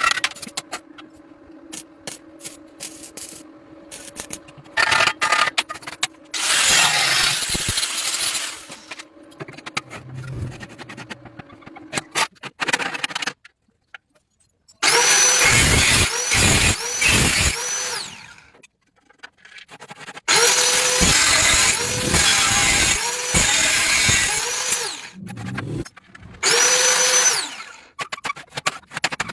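Handheld power tool running in three bursts of a few seconds each, its whine bending in pitch as it speeds up and winds down, with clicks and a low steady hum in the quieter stretch before.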